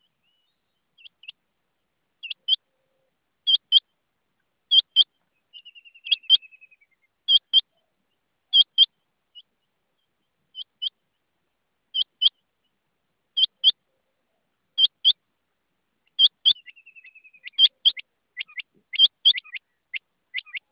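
Rain quail calling: sharp, high double notes repeated about every second and a half. A faint, falling trill comes twice, and near the end the notes come quicker in a run.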